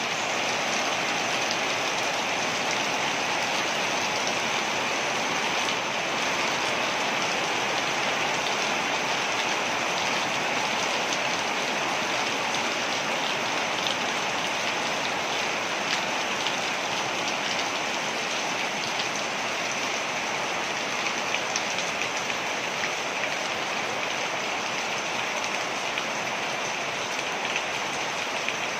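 Waterfall: a steady rush of falling water with fine splashing patter, unchanging throughout.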